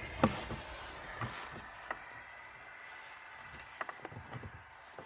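Hand work on an old Jeep Wagoneer's parts: a few sharp clicks and knocks of parts and tools being handled and pried, the loudest one just after the start and a quick cluster near the end.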